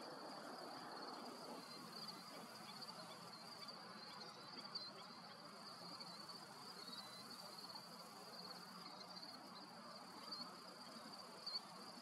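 Faint insects trilling steadily at a high pitch over soft outdoor background noise.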